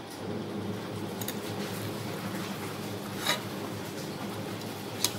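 Pot of beef soup simmering on a stove: a low steady hum, with two sharp clinks about three and five seconds in.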